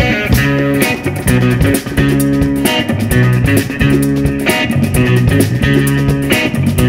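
A live funk band playing an instrumental groove: a bass guitar line of short, repeated stepping notes and electric guitar over a drum kit beat.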